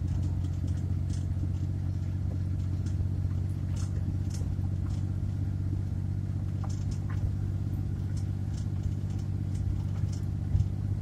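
Steady engine and road drone of a small van being driven, heard inside the cab, with faint light rattles and a brief thump about ten and a half seconds in.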